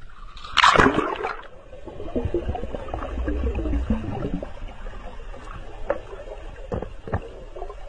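A dog plunges into water with a loud splash about half a second in, then muffled bubbling and gurgling heard through an underwater microphone as it swims below the surface, with a few sharp clicks near the end.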